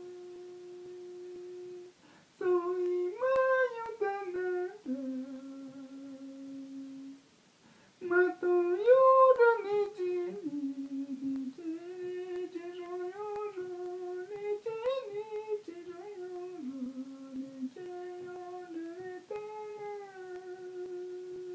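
A single voice humming a wordless icaro melody: long held notes that slowly rise and fall, in phrases broken by short pauses for breath about two and eight seconds in.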